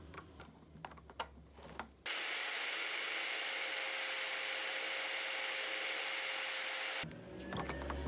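Drill press spinning a small crimp-press part while a non-woven abrasive pad is held against it: a steady, even hiss with a faint hum, switching on about two seconds in and cutting off abruptly near the end. Light clicks of the part being handled come before and after.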